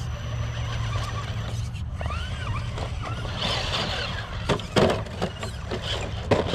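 Small electric RC rock-crawler trucks on rocks, their motors whining up and down in pitch as they are throttled. Sharp plastic clacks and knocks come about 4.5 to 5 seconds in and again near the end as one truck tumbles over onto its roof on the rocks.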